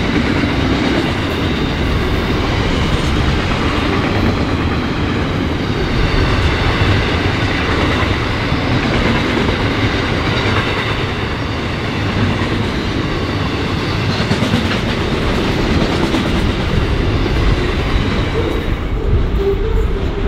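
Container freight train wagons rolling past at speed, wheels clattering over the rail joints in a steady rush of noise. The sound thins near the end as the last wagons go by.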